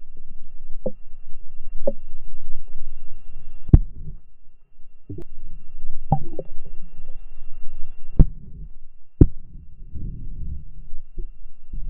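Muffled low rumble and throbbing of water moving past an underwater camera's waterproof housing, with a few sharp clicks and a faint steady high tone in the background.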